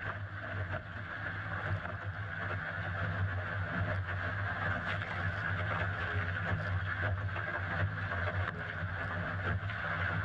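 Water rushing and splashing along the hull of a Laser sailing dinghy sailing fast through chop, heard from on deck as a steady rush over a low rumble with small splashes and ticks.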